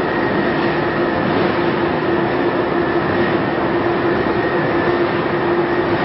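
Carbonization furnace plant running with its diesel burners firing: a loud, steady machinery drone with a constant hum through it.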